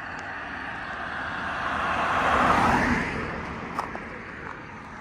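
A car driving past on the road. Its tyre and engine noise swells to a peak about halfway through, then fades away.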